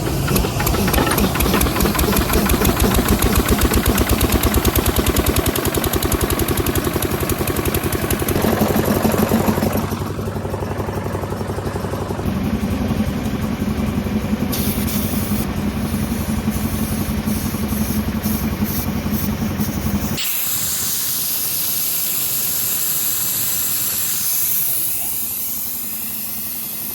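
Heavy diesel engine of earthmoving machinery running with a rapid even pulse, its speed and load rising and falling. About two-thirds of the way through it cuts off abruptly and a steady hiss takes over.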